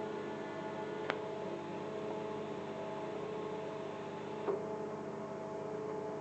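TIG welding arc humming steadily, a stack of steady tones over a faint hiss, with two short clicks, about a second in and again near the end.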